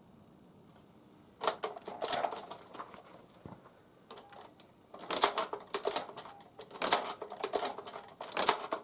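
Tippmann Boss hand-lever leather sewing machine clattering through stitches in three bursts of clicks as its handle is worked, starting about a second and a half in. The machine has been binding and catching the thread loop, which the owner puts down to wear, dirt or being out of adjustment.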